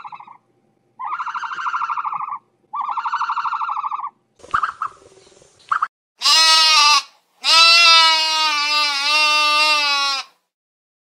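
Animal calls cut one after another: three buzzy, trembling calls of about a second and a half each, a short rustle with a couple of clicks, then two loud bleats, the second held for about three seconds with a wavering pitch.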